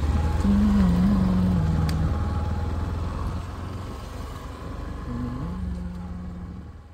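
Bajaj Platina motorcycle's single-cylinder engine pulling away from a stop and running along the road, its pitch stepping up and down as it changes speed, with road and wind noise. The sound fades out near the end.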